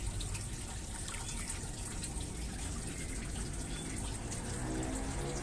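Water running steadily into a fish tub, an even, continuous trickling flow.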